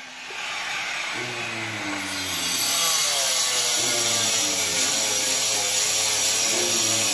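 A small motor running steadily, its pitch wavering slowly, with a hiss that grows louder about two seconds in.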